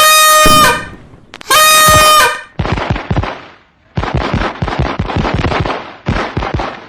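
Two loud horn blasts, each under a second, the second about a second and a half after the first. Then rapid strings of firecracker bangs crackle in bursts.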